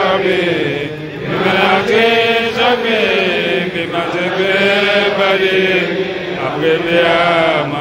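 A man's voice chanting a prayer into a microphone in long, melodic held phrases that rise and fall, with brief breaths between them; it is a supplication that the gathering answers with "Amen".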